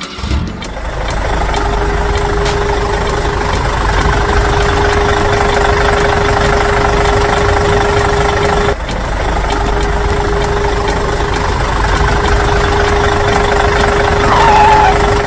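An engine or motor running steadily with a constant tone over its noise. It breaks off briefly about nine seconds in, then carries on.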